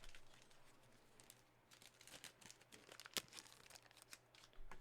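Faint crinkling and small clicks of trading card pack wrappers and cards being handled, busiest in the middle, with one sharper click about three seconds in.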